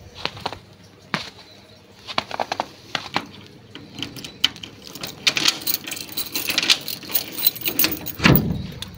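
A bunch of keys jingling and a key working the lock of a metal gate door, with a few scattered clicks first, then dense metallic rattling and clicking of the lock and lever handle, ending in a heavier clunk near the end.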